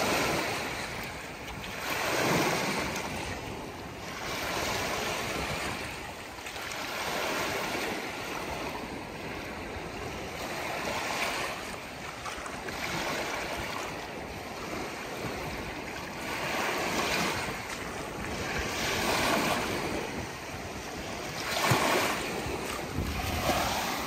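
Small wind-driven waves breaking and washing up on a sandy reservoir shore, surging every few seconds. Strong wind buffets the microphone.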